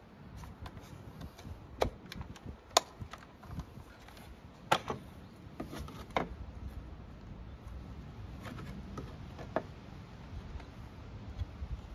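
Sharp plastic clicks and knocks, about five of them at uneven intervals, as the air filter cover and filter are unclipped and lifted off a STIHL FS250 brush cutter.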